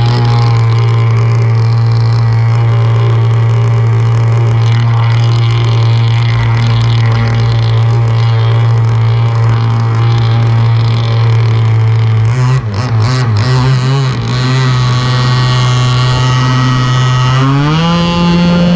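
Warehouse Hobbies Enforcer RC speedboat's motor running steadily at one pitch, wavering and clicking briefly about 12 seconds in, then rising in pitch near the end as the throttle opens and the boat speeds up.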